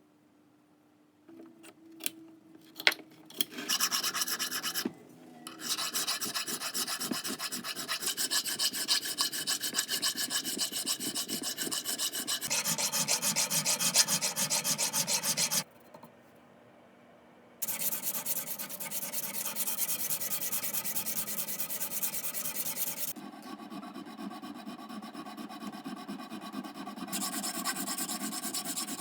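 Steel of a vintage pipe wrench being worked by hand with an abrasive, a continuous rubbing and scraping in long stretches. A few knocks come first, the scraping stops for about two seconds about halfway through, and it goes on more quietly near the end.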